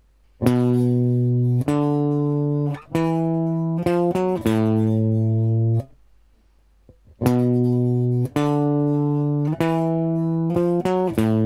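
Gibson Les Paul electric guitar playing a slow riff phrase twice, with a short pause between. Each pass is two long held notes, a quick run of short notes, and a final held note.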